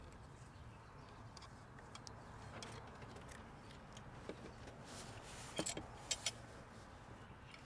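Small metallic clicks and clinks from hand tools and parts being worked loose in a car's engine bay, with a quick cluster of sharper clicks near the end, over a low steady hum.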